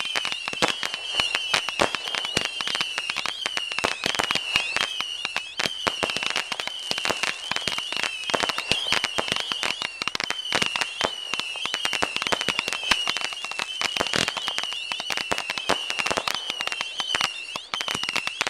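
Fireworks crackling: a dense, irregular rattle of many sharp little pops, packed closely together.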